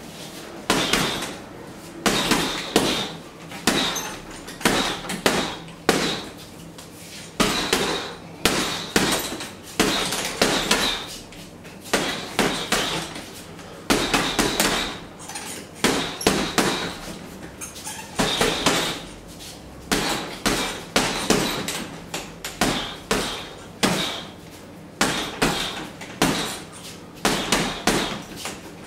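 Boxing gloves punching a hanging heavy bag: sharp thuds in quick combinations of two to four punches, with short pauses between.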